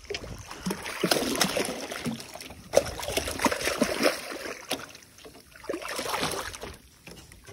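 A hooked snook thrashing and splashing at the surface beside the boat as it is brought in, in irregular bursts of splashing, heaviest in the first few seconds and again briefly near the end.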